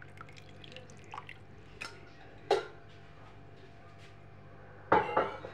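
Scattered small clicks and drip-like ticks, with a sharper knock about two and a half seconds in and a short cluster of louder knocks near the end.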